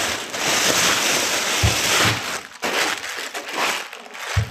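Thin clear plastic bag crinkling and rustling as it is pulled off a small inverter welding machine, loudest in the first two seconds, then in patchier rustles, with a couple of soft knocks.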